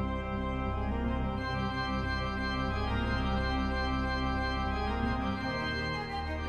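Organ music: sustained chords over a steady deep bass, with the chord shifting a little over five seconds in.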